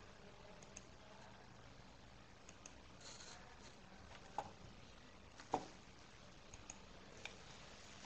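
Near-silent room tone with a few faint clicks from a computer mouse, the two loudest about halfway through, a second apart.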